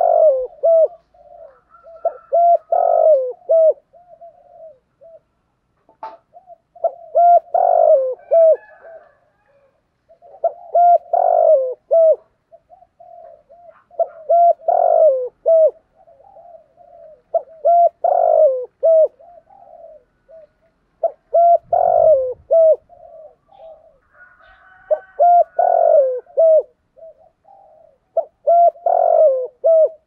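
Spotted dove cooing in the deep 'thổ' voice prized by Vietnamese dove keepers: a phrase of a few short coos followed by stronger drawn-out coos, repeated about every three to four seconds.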